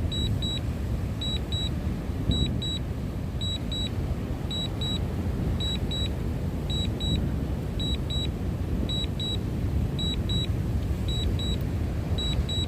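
Remote controller beeping in short double beeps, about one pair a second: the DJI RC-N1 signalling that the drone is on Return-to-Home. Underneath is a steady low rumble of wind on the microphone.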